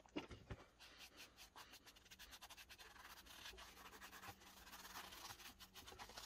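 Faint, quick scratchy rubbing of a hand-held rag wiping finishing oil into the surface of a carved wooden relief disc.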